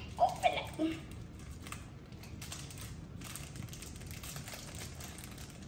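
Plastic chocolate-bar wrappers crinkling and crackling as they are picked and torn open by hand, a dense run of small faint crackles. A child makes a few short vocal sounds in the first second, the loudest part.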